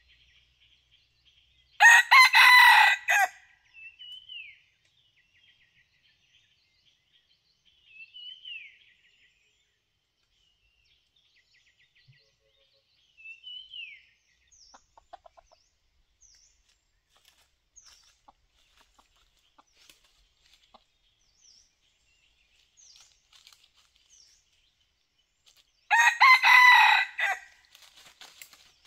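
A red junglefowl rooster crows twice, once about two seconds in and again near the end. Between the crows there are a few short, falling higher-pitched calls and faint chirps.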